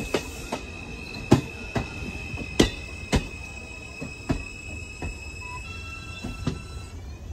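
Subway train's steel wheels clicking irregularly over rail joints and switch work as it runs along open track, over a low rumble and a steady high-pitched whine; near the end a few rising tones come in.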